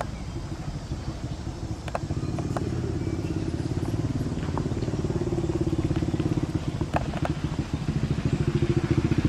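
An engine running steadily with a fast, even pulse, growing gradually louder. A few faint sharp clicks sound over it.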